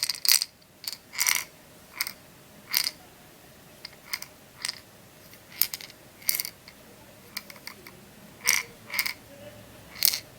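Ball bearing rolling and clicking against the walls inside a blind maze puzzle as it is tilted, in short irregular rattles about a second apart.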